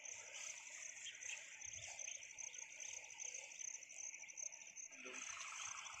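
Faint, steady high-pitched insect chirring, such as crickets, in grassland, with a few soft low rustles.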